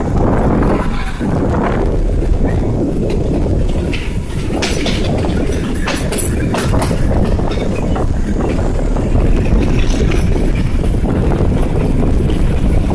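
Shimla narrow-gauge toy train running, with a steady rumble of wheels on the rails and scattered clicks and clatter from the carriage.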